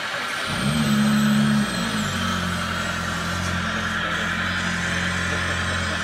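Engine drone of radio-controlled model construction machines. It comes in and rises about half a second in, then settles to a steadier, lower drone about two seconds in. A thin, wavering high whine sits over it at first.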